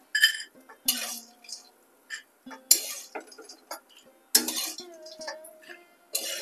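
Steel spatula scraping across a metal wok and clanking against a steel bowl as fried badi (lentil dumplings) are scooped out. A string of sharp metallic clinks and scrapes comes at irregular intervals, about five of them loud.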